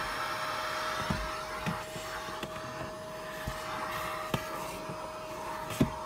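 Eureka Mighty Mite vacuum cleaner running steadily with a constant motor whine over a hiss of airflow. A few sharp knocks come through it, the loudest near the end.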